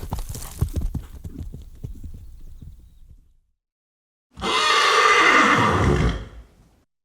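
Pegasus sound effect built from horse sounds: a run of hoofbeats that fades out, then, after a second of silence, a loud horse neigh of about two seconds that drops in pitch at the end.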